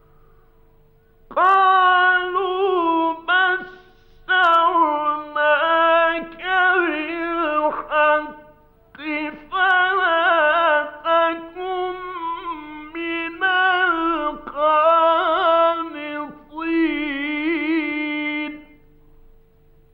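Male Quran reciter chanting in the melodic mujawwad style, a run of ornamented, wavering held notes with short breaks between phrases, starting about a second in and stopping near the end. It is an old 1950s radio recording with a steady hum underneath.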